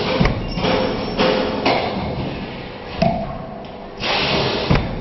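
70-cavity plastic cup thermoforming machine cycling: repeated mechanical thumps and clanks of the forming and cutting press, mixed with hissing. The longest hiss comes about four seconds in.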